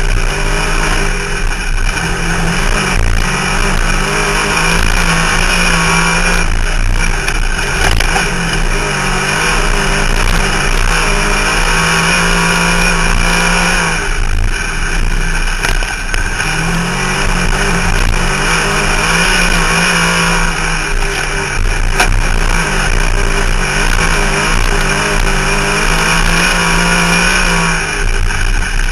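Race car engine heard from inside the car, revving up and easing off again and again every few seconds as it circles the track, over a steady rush of road and wind noise.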